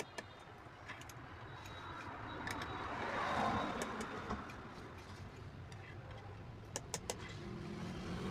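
Light clicks and taps of small metal engine parts being handled, over a passing vehicle's hum that swells about three seconds in and builds again near the end.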